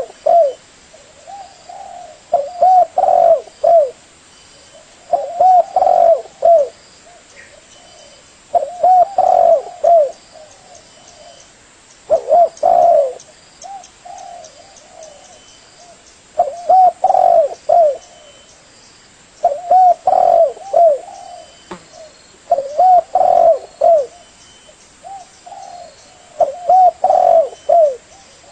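Spotted dove (tekukur) cooing: a repeated phrase of several quick curving coos, each phrase about a second long and coming round every three to four seconds.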